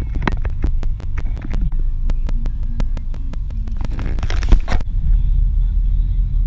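Steady low rumble of a moving van's engine and road noise heard from inside the cabin. For the first few seconds a quick run of sharp clicks and knocks sounds over it, ending in a brief loud rustle about four and a half seconds in.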